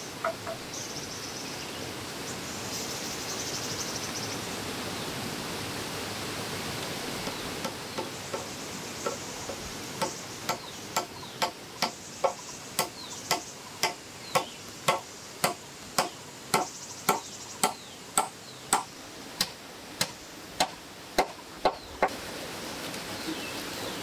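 Claw hammer driving nails into round wooden logs: sharp, regular strikes about twice a second, beginning about eight seconds in and stopping shortly before the end. Rushing water runs steadily underneath, with a brief insect buzz early on.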